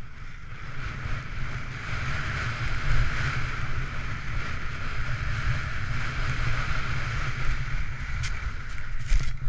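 Wind rumbling over a GoPro Hero 3 action camera's microphone while skiing downhill, with the steady hiss of skis sliding over snow. There is a short sharp clatter near the end.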